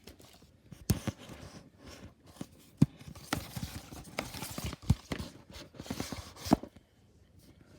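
Irregular clicks, knocks and scrapes of a novelty gumball machine bank being handled as it is readied for refilling.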